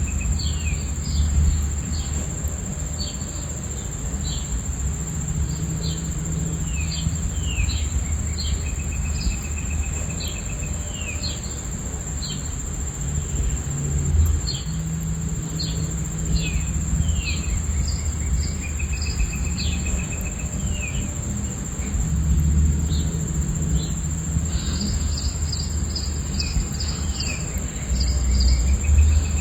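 Steady high-pitched cricket chirping, with birds calling in repeated short chirps and brief trills over it, and a low steady rush of falling water underneath.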